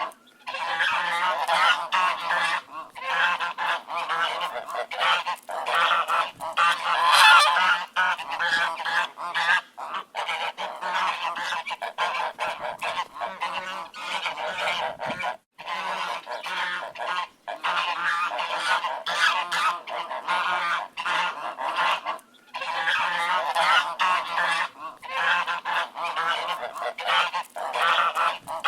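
A flock of ducks quacking, many calls overlapping in a continuous din, with a couple of brief lulls.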